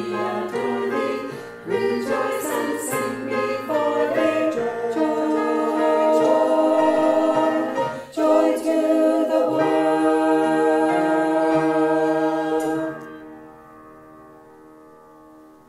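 Choir singing a hymn with piano, ending on a long held final chord that fades away over the last few seconds.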